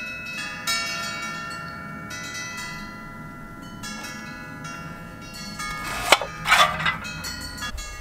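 Several bell-like chime tones ringing and overlapping, like wind chimes. About six seconds in come a sharp click and a short gritty scrape, as a metal soil blocker is pressed into wet potting mix.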